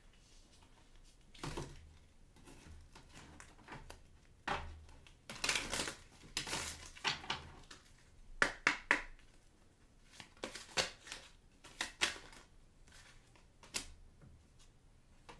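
A deck of oracle cards shuffled and handled by hand: irregular rustling with sharp card snaps, several close together about halfway through.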